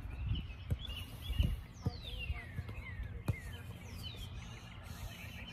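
Songbirds chirping, with a few quick descending whistled calls, over a low wind rumble on the microphone. A few soft thuds of a soccer ball being touched and kicked on grass.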